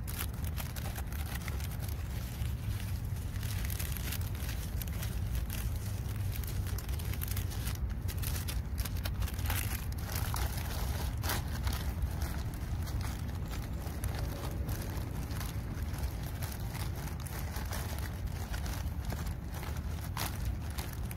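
A plastic packet crinkling and rustling as anise seed is shaken out of it into a bucket of corn bait, with scattered short clicks and crackles of handling. A steady low rumble runs underneath.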